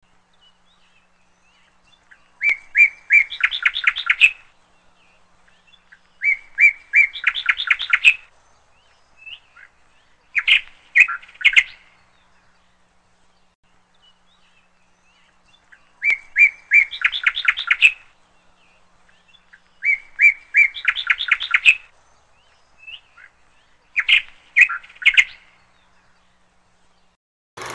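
A songbird singing in short phrases, each a few clear notes running into a fast trill. The same three phrases are heard twice, with a short pause between the two groups.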